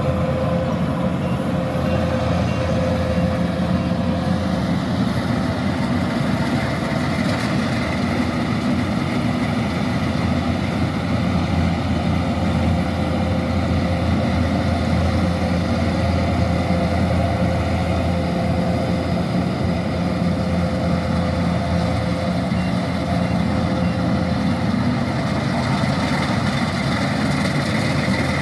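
Kubota DC-108X combine harvester's diesel engine and machinery running steadily at an even pitch: a deep, constant hum with a few steady tones above it.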